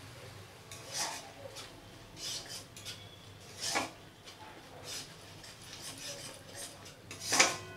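A long metal spoon scraping and clinking against a metal kadai while stirring a thick yogurt masala, a scrape every second or so, the loudest near the end. The beaten yogurt has just gone into the fried masala and is being stirred continuously so that it does not split.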